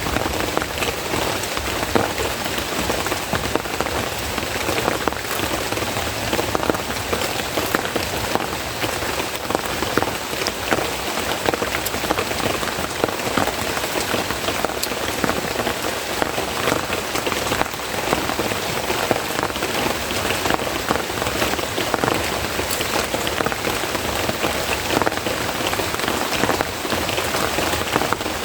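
Heavy rain falling steadily, a dense patter of drops striking surfaces close by.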